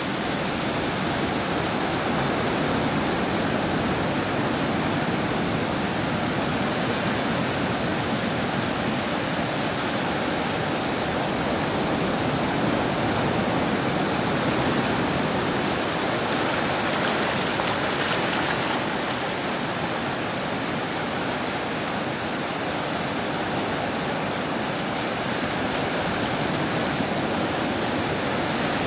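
Surf washing over a rocky shore in a steady rush of water, with a brief louder hiss about two-thirds of the way through.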